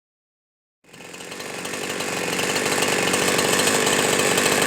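Husqvarna 372-clone two-stroke chainsaw running at high revs, coming in about a second in, getting louder over the next couple of seconds, then holding steady. The saw is nearly out of fuel.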